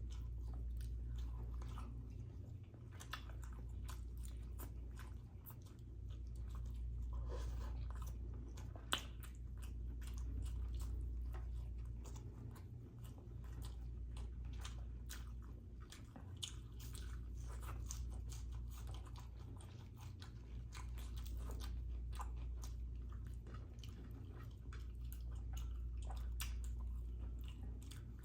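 Close-miked chewing and biting of marinated fish, with many sharp mouth clicks and crunches. A low hum swells and fades every few seconds underneath.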